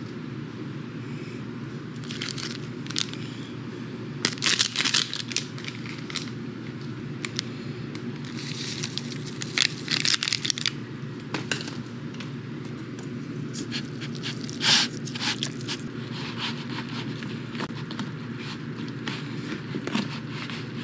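Foil seasoning packets crinkling, being torn open and shaken out over noodles, then noodles being stirred in a plastic container, in short crackly bursts over a steady low hum.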